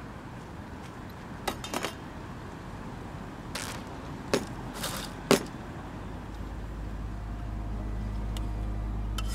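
Camp-cooking handling sounds: a few sharp plastic crinkles and clicks from a zip-top bag and cookware in the first half, over a low steady background. A low sustained music tone fades in over the second half and grows louder.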